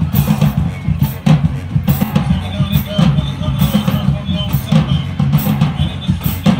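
A high school marching band playing in the stands: low brass and sousaphones with bass and snare drums beating out a rhythm. Crowd voices sound underneath.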